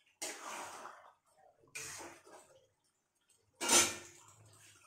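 Metal spoon scraping and stirring thick curry in a steel pot, in three short bursts. The last is a louder clank near the end, as the spoon knocks against the pot.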